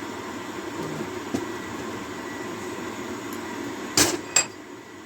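Blacksmith's shop: a steady rushing noise, then two sharp metallic knocks about four seconds in, a fraction of a second apart, the second ringing briefly, as hot bar stock is worked into a scroll.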